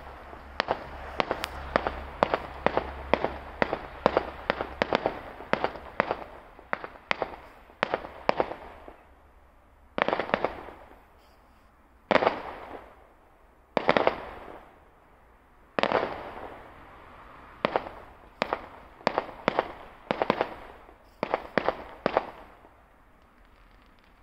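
Fireworks going off: a quick string of sharp bangs, about three a second, for the first eight seconds or so. Then come four louder single bangs a couple of seconds apart, each trailing off over about a second, and another run of bangs that stops a couple of seconds before the end.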